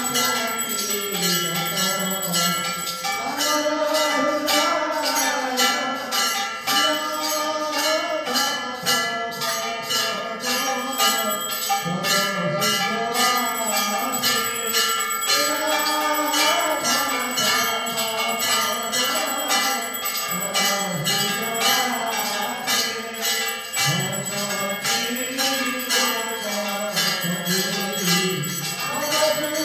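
Temple worship bells ringing with rapid, evenly repeated strikes throughout, over voices singing a devotional chant.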